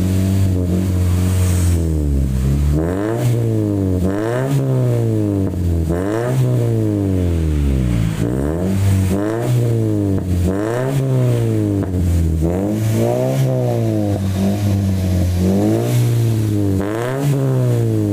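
A third-generation Toyota Vios's exhaust through a Spoon-style silent muffler, with the stock manifold and catalytic converter kept, heard at the tailpipe. The engine holds steady for about two seconds, then is blipped over and over, the pitch rising and falling every second or two, with a bassy, mellow tone.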